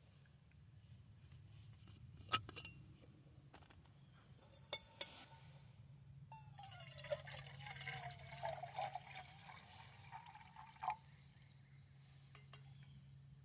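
Liquid being poured into a container for about four seconds, starting around six seconds in, its pitch dipping and then rising again. A few sharp clinks or knocks come before it.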